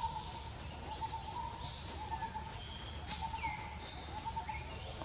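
Outdoor woodland ambience: scattered bird chirps over a steady high-pitched hum.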